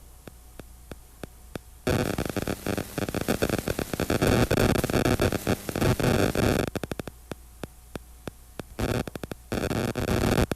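Electrical static: a low hum with rapid, irregular clicks. Loud bursts of harsh hiss come in about two seconds in, cut out near seven seconds, and return twice near the end.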